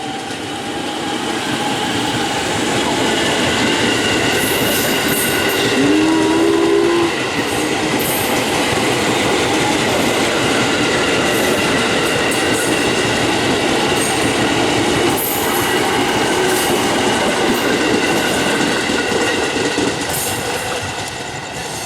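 A train passing close at speed, its wheels clattering over the rail joints; the sound builds over the first few seconds and fades near the end. A short horn note sounds about six seconds in.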